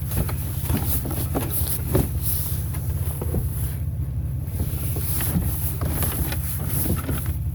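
A steady low rumble with scattered light clicks and rustles, like items being handled.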